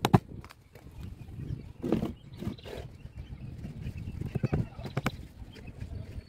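A hammer knocks fasteners through upholstery cloth into a wooden chair seat board: a few sharp knocks, spaced a second or more apart, with cloth rustling between them.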